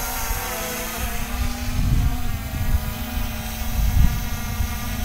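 Quadcopter drone (SJRC F22) propellers whining in flight, several steady pitches wavering a little as the drone holds position in strong wind. Gusts of wind rumble on the microphone around two and four seconds in.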